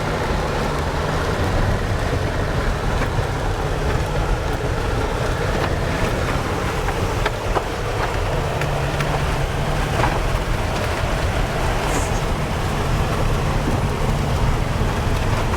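Steady rumble of a moving vehicle heard from inside: engine and road noise, with a few light ticks and knocks scattered through it.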